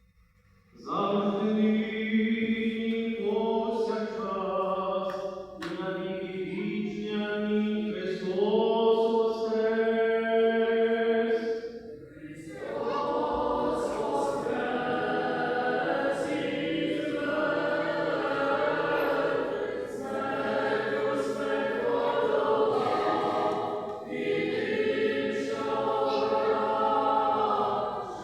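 Ukrainian church choir singing a religious chant, several voices together. The singing starts about a second in, breaks briefly about halfway through, then resumes.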